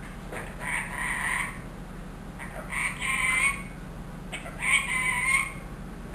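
Indian ringneck parakeet making three short, squeaky vocal bouts, each about a second long and roughly two seconds apart, in its high-pitched mimicking voice. A steady low hum sits underneath.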